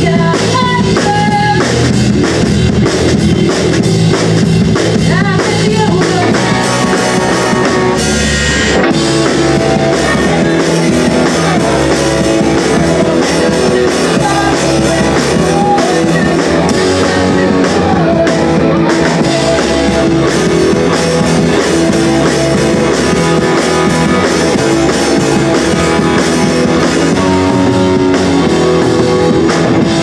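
Live rock band playing loudly on electric guitars and a drum kit.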